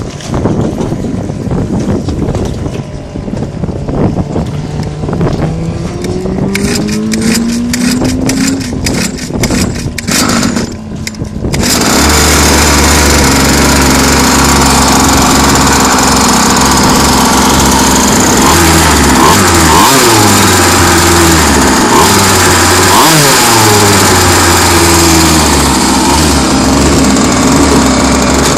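Small petrol engine of a large RC racing boat being started. For the first dozen seconds there is uneven cranking with a rising whine and rapid ticking. About twelve seconds in the engine catches and runs loud and steady, its pitch shifting a few times.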